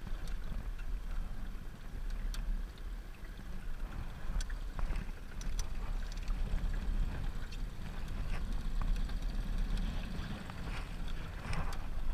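Small aluminium boat under way with its gas outboard motor running: a steady low rumble with water washing along the hull and a few light knocks.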